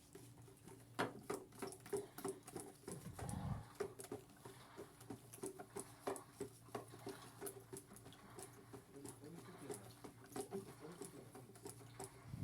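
Washing machine running mid-cycle, faint: a steady low hum with light, irregular clicks and patter, and a brief low rumble about three seconds in.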